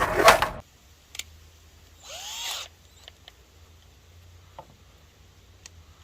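Rapid hammer blows on the deck's boards and nails, about three a second, stopping about half a second in. A short scraping squeal about two seconds in, then a few light taps and clicks.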